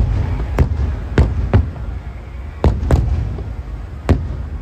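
Aerial fireworks shells bursting: about seven sharp bangs at irregular intervals, over a steady low rumble of more distant bursts.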